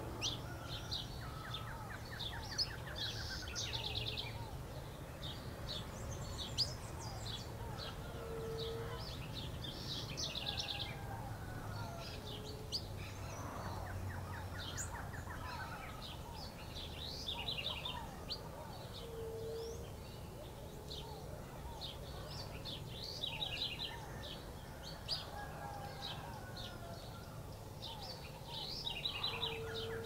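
Several small songbirds chirping and giving rapid trills throughout, with a short, lower single note repeating every few seconds, over a steady low background rumble.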